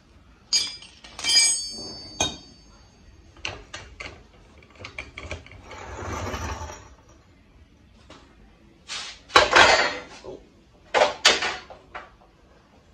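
Hands handling steel suspension parts: two sharp metallic clinks that ring briefly early on, a soft rustle, then louder bursts of rubbing and knocking as the front coil spring is worked into the lower control arm.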